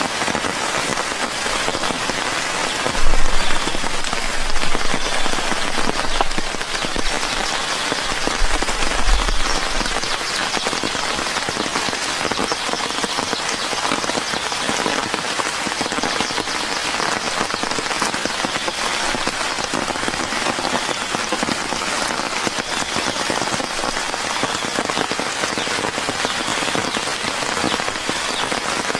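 Steady rain falling, with low rumbles between about three and ten seconds in.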